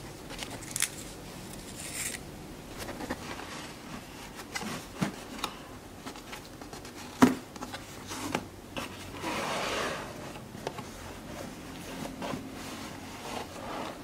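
Hands handling a cardboard gift box and its ribbon: rustling, scraping and scattered small taps and clicks, with one sharp knock about seven seconds in and a longer rustling scrape around nine to ten seconds in.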